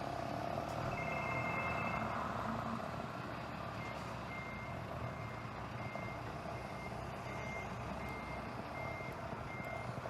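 A steady rumbling noise with an electronic beeper sounding over it. The beeper holds one high tone for about a second, then from about four seconds in gives short high beeps, evenly spaced a little under a second apart.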